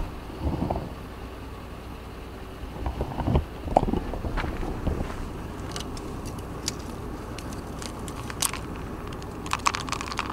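Dry twigs and branches rustling, clicking and cracking as a hand pushes through them and handles a small container hanging in the tree. The clicks are scattered, with more of them in the second half.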